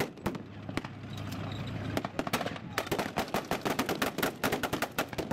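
Battle re-enactment gunfire with blank rounds: a few separate shots, then from about two seconds in a dense run of rapid shots in bursts, like machine-gun and rifle fire together.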